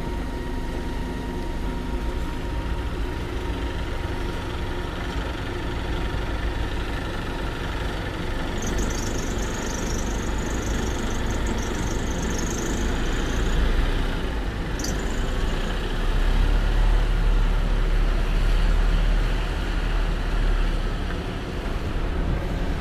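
Gas-powered Scania single-decker bus (Enviro300SG) idling at the stop. An air hiss runs for about five seconds near the middle, with a short sharp hiss just after it. Then the engine's low drone grows louder as the bus pulls away.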